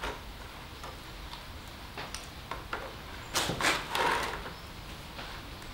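Hose and plastic bucket being handled: a few light knocks, then a louder burst of handling noise about three and a half seconds in.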